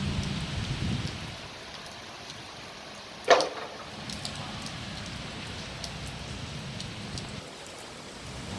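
Heavy rain falling in strong wind, a steady hiss, with gusts rumbling in the first second. About a third of the way in comes one sharp bang, the loudest sound.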